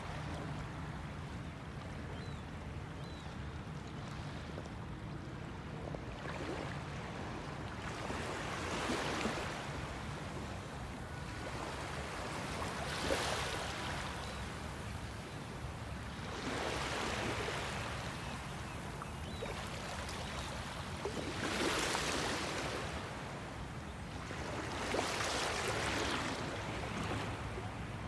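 Water splashing and lapping in swells that come every three to four seconds, over a steady low rumble.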